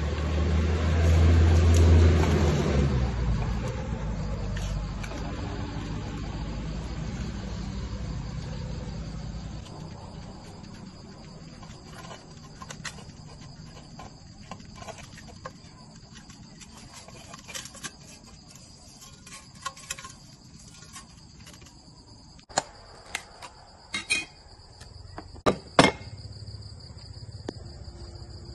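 Crickets chirring steadily in the background. A low rumble is loudest in the first few seconds and fades out by about ten seconds in, and a few sharp clicks come near the end.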